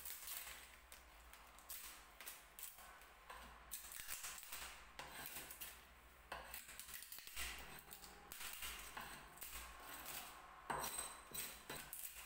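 Steel chisel and scraper blade scraping and prying loose, weathered veneer off a wooden tabletop, in irregular scratchy strokes with small clicks and cracks as pieces break away.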